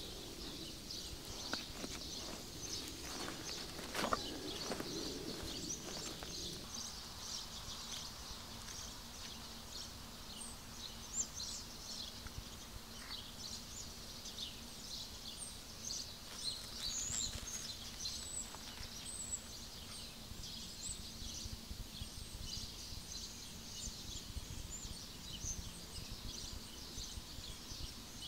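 Forest birds chirping and singing in many short high calls throughout. In the first few seconds there is rustling from gear being unpacked, with a sharp click about four seconds in.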